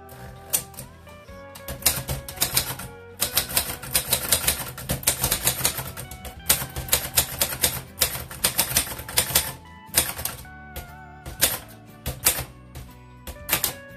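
Japy Script manual typewriter being typed on: quick runs of type bars striking the platen in bursts, with short pauses between them. Background music plays underneath.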